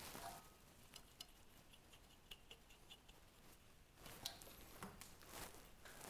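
Near silence with a few faint small clicks and light scraping: hands threading the blue manifold-gauge hose's fitting onto a piercing valve on a refrigerator's copper refrigerant line.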